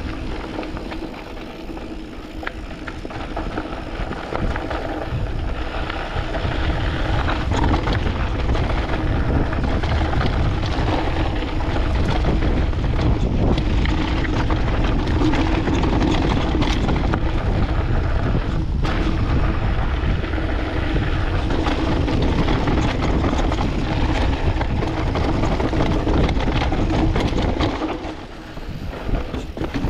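Canyon Spectral AL 6.0 full-suspension mountain bike descending a dusty, rocky singletrack: tyres crunching over loose stones, with chain and frame rattling and many small knocks. Wind buffets the chest-mounted camera's microphone throughout. It gets briefly quieter near the end.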